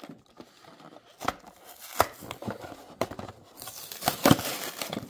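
Hands handling and prying open a clear plastic blister pack on a cardboard backing card: scattered clicks and crinkling of stiff plastic and card. It gets busier and louder for the last second and a half, with one sharp snap about four seconds in.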